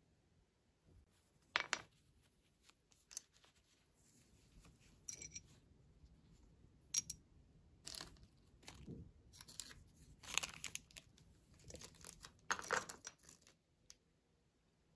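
Small plastic toys and their thin plastic wrappers being handled: a string of short crinkles, rustles and light plastic clicks, quieter handling noise between them.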